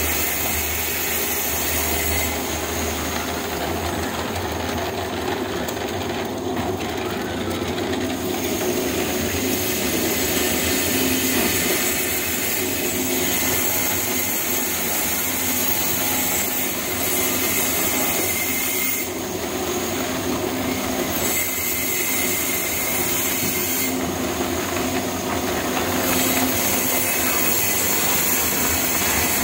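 Electric drum concrete mixer running steadily, its drum turning on the ring gear.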